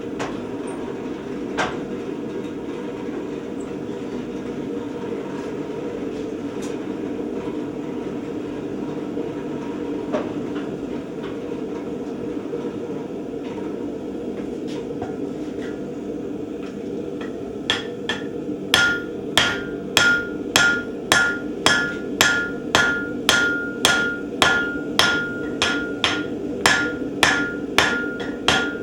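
Hammer blows on steel during forging. A few scattered strikes come first, then from a little past halfway a steady run of about two ringing blows a second, over a steady hum.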